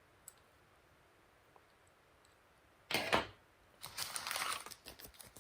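Plastic packaging rustling and crinkling as it is handled during unboxing: one short burst about three seconds in, then a run of quick crackles near the end. Before that it is nearly quiet apart from one faint click.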